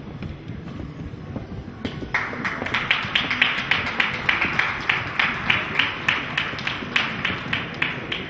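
A crowd starts clapping about two seconds in and settles into steady rhythmic clapping, about three claps a second.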